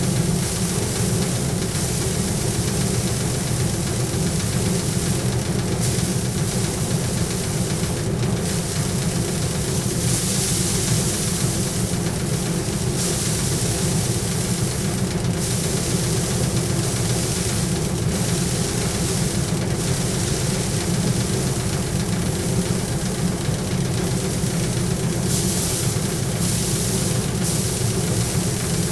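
Paddy drum thresher running steadily, a constant low machine drone under a rushing, rattling noise as bundles of rice stalks are pressed against the spinning drum and the grain is beaten off; the rushing swells at times as fresh bundles go in.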